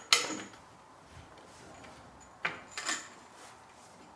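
Metal clicks from handling a floor jack and tools under the rear suspension: one sharp click, then two softer clinks about two and a half seconds later.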